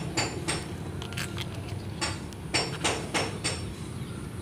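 A series of irregular sharp clinks and taps, roughly two or three a second in uneven groups, with a slight metallic ring, over a low steady hum.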